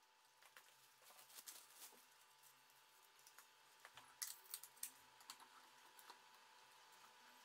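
Faint clicks and taps of metal tape reels being seated on the spindles of a Tandberg TD-20A reel-to-reel deck and the leader tape being handled, with a cluster of sharper clicks about four to five seconds in.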